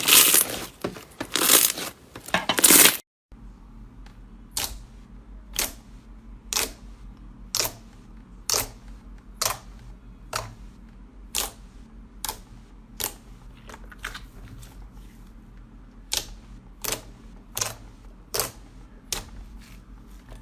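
Slime being squeezed and worked by hand, with dense crinkly crackling for about three seconds. After an abrupt cut, sharp single clicks or pops come about once a second over a low steady hum.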